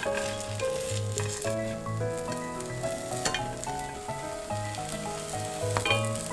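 Egg-dipped bread frying in a pan with butter or oil, a steady sizzle with small crackles, over slow solo piano music.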